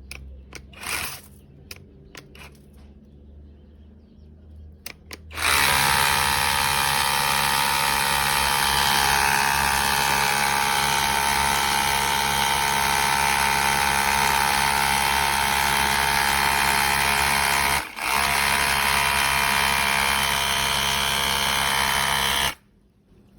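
Cordless 1250 PSI pressure washer running, its electric motor and pump whining steadily over the hiss of the spray. It starts abruptly about five seconds in after a few clicks, drops out for an instant near the end, and cuts off suddenly.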